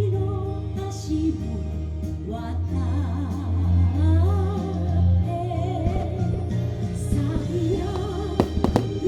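Music with a singing voice over a steady bass, played for a fireworks show, with a few sharp firework bangs near the end.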